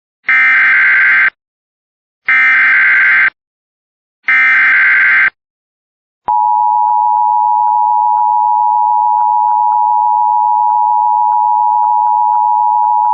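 Emergency Alert System SAME header: three one-second bursts of screeching digital data tones, about a second apart, encoding a Special Marine Warning. About six seconds in, a long, steady, single-pitched alert tone begins.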